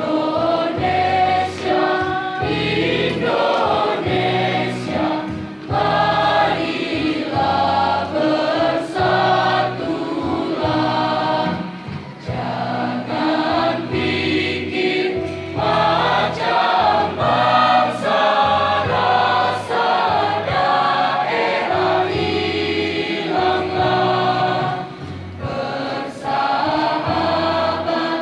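A large mixed school choir of boys and girls singing an Indonesian patriotic song in unison, accompanied by an electronic keyboard played through a loudspeaker. The singing comes in phrases with short breaks between them.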